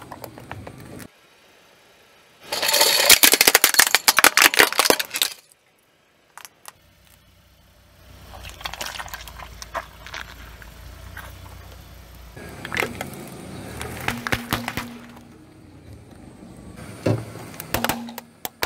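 A car tyre rolling slowly over objects on asphalt and crushing them: dense crackling and crunching of plastic, with scattered sharp cracks and knocks. A low engine rumble sits under the middle part, and the sound stops abruptly at cuts between clips.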